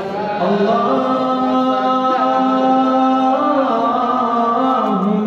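A male radood (Shia devotional reciter) chanting solo into a microphone, drawing out long held notes that step up and then back down in pitch.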